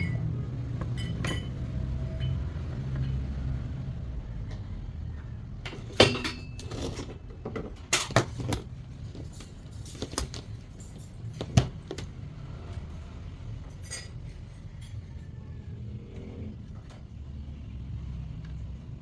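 Several sharp clicks and knocks of parts being handled as a bottled water dispenser is taken apart for repair, over a low steady rumble.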